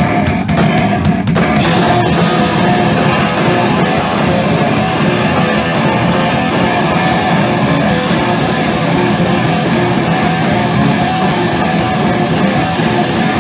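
A live punk rock band playing loud: distorted electric guitar, bass and drums, with a singer shouting into the microphone. A few stop-start hits open it, then the full band plays on without a break.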